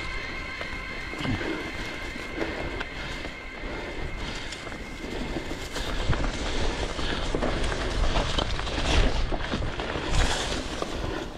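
Mountain bike rolling fast down a dirt singletrack: tyre rumble on dirt and rock, rattles and knocks from the bike, and wind on the microphone, getting louder about halfway through.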